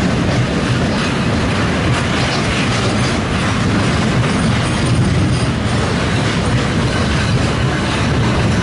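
Rajdhani Express passenger train running steadily: a continuous loud rumble with wheels clattering over the rails.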